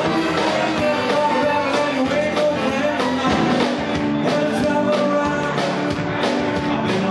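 Eight-piece swing band playing live: a full, steady swing number with drums keeping an even beat.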